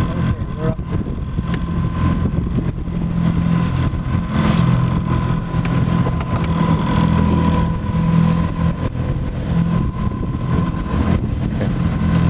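Boat's outboard motor idling steadily, a low even hum.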